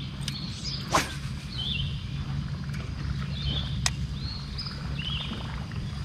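A songbird repeats short warbled phrases every second or two over a steady low hum, with a sharp click about a second in and another near four seconds.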